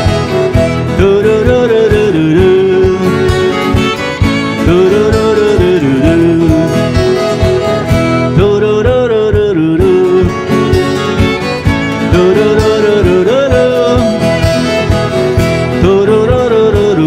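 Instrumental break of a folk song: two violins play a repeating melody, with vibrato on the held notes, over steadily strummed acoustic guitars.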